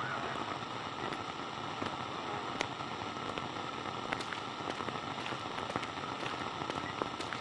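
Steady hiss with scattered small crackles and clicks throughout.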